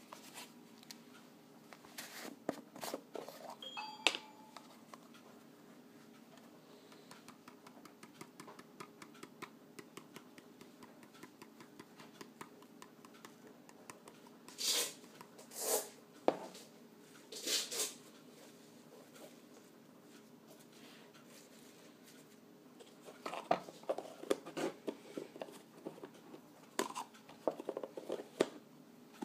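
A plastic jar of Rep-Cal Herptivite supplement powder shaken over chopped kale, three short shakes about halfway through. Scattered taps, clicks and rustling of the leaves and the jar come before and after.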